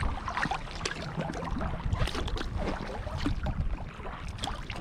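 Kayak paddling: paddle blades dipping and water splashing and trickling in many small irregular splashes, over a steady low rumble.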